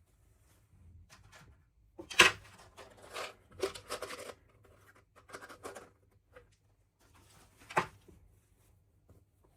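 Hands unboxing small toys: packaging rustling and scratching, with scattered clicks. The two sharpest clicks come about two seconds in and near the end.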